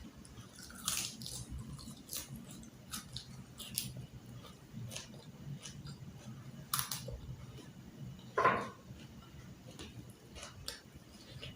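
Close-up chewing of crispy fried carp: scattered crunches and wet mouth clicks, with one louder short sound about eight and a half seconds in.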